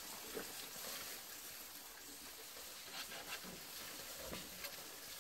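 Meat sizzling quietly on a charcoal grill, with a few light clicks as a knife and fork work the meat on the grate.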